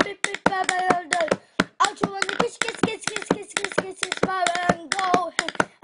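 A pencil rapped quickly and unevenly as a drumstick, several taps a second, with a child's voice holding wavering sung notes between the taps.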